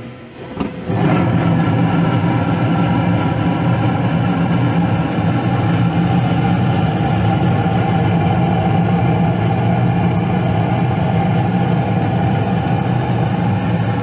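Gas furnace burners lighting off the glowing hot surface igniter about a second in, then burning steadily with a low rumble over the draft inducer. The furnace is firing normally now that the water blocking the pressure switch has been cleared.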